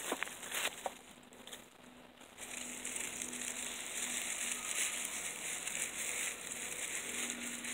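Dry leaves crinkling and crunching as handfuls are pushed and packed into a scarecrow's stuffed shirt. A few sharp crackles come right at the start, and after a quieter second or two the rustling goes on steadily.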